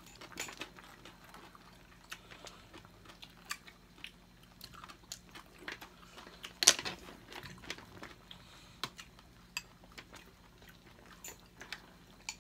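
Mealtime eating sounds: chopsticks clicking and tapping against a metal hotpot and bowls as noodles are lifted out, with chewing, and one louder clink about six and a half seconds in.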